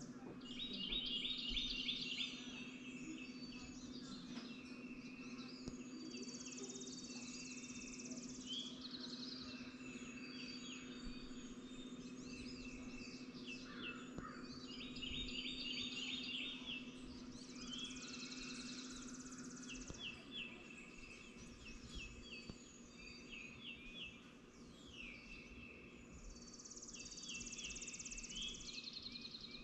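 Dawn chorus of several songbirds, with repeated chirps and rapid trills overlapping. A faint steady low hum runs underneath and stops about twenty seconds in.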